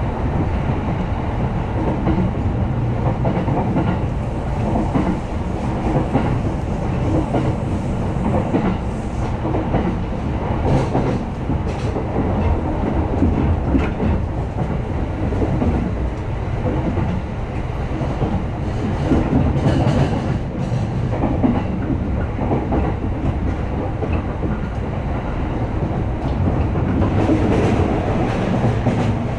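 Electric commuter train running along the track, heard from inside the carriage: a steady low rumble of wheels on rail, with scattered clicks as the wheels pass over rail joints.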